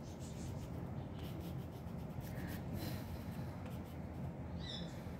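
Faint, irregular rubbing and scratching strokes on drawing paper, from work on a pencil sketch, over a low steady hum.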